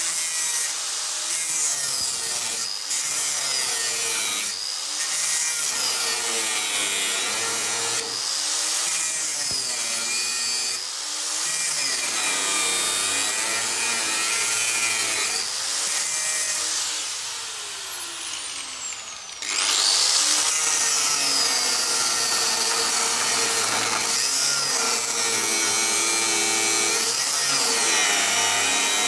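Angle grinder with a cutting disc biting into steel, cutting off the rusted bolts of a Land Rover rear crossmember; its pitch wavers up and down as the disc loads and frees in the cut. About seventeen seconds in it eases off and winds down, then comes back on at full speed a couple of seconds later.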